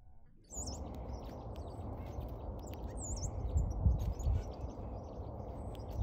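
About half a second in, outdoor sound begins: a low rumble of wind on the microphone, louder around four seconds in, with a couple of high, thin bird chirps and scattered light clicks of a bill picking at seed in the palm.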